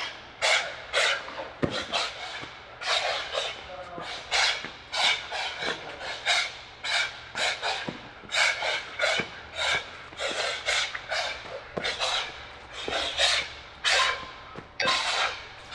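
Sharp, hissing exhalations in a quick, steady rhythm, about two a second: a boxer breathing out through the mouth with each punch while shadowboxing at full effort, with a few light knocks among them.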